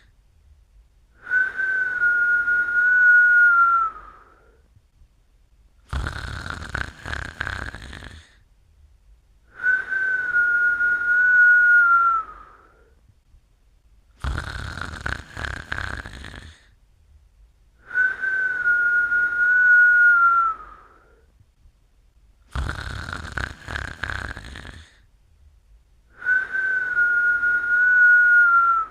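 A sleeper snoring in a slow, regular cycle: a noisy snore, then a long steady high whistle that dips slightly as it fades, repeating about every eight seconds. Four whistles and three full snores fall in the span.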